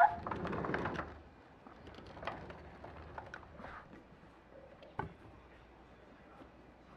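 Cats at a glass patio door: a short meow right at the start, then about a second of scuffling, followed by scattered light taps and clicks, with one sharper click about five seconds in.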